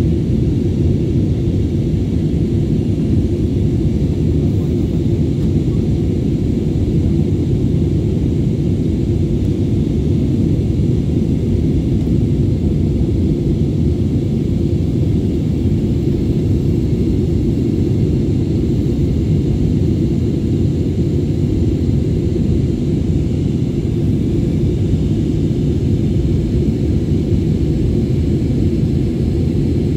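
Jet airliner cabin noise in flight, heard from a window seat: a steady, deep, even rumble with little high end.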